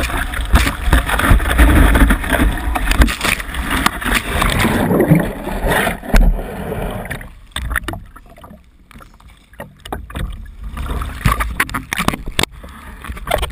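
Water spray and rushing water and wind on an action camera riding with a kitesurfer, loud and dense, dropping much quieter about seven seconds in, with scattered splashes and knocks after that.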